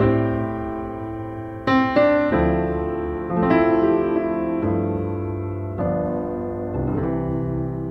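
Background piano music: slow chords and bass notes struck about once a second or so, each ringing and fading before the next.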